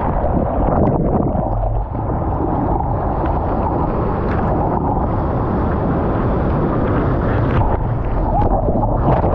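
Water rushing and splashing against a surfboard being paddled through the surf, picked up by a board-mounted action camera, with a steady wind-and-water rumble on the microphone. Near the end a breaking wave washes over the board and camera in a louder, hissier splash.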